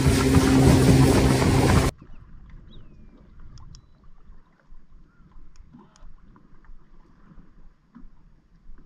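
Boat motor running steadily with the hull moving over the water, cut off abruptly about two seconds in. Then quiet, with a few faint small clicks.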